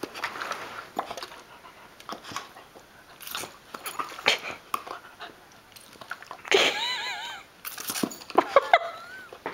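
Yellow Labrador puppy snapping at squirts from a water bottle: a string of short spurts and snaps, with a wavering whine about two-thirds of the way through and a shorter rising whine near the end.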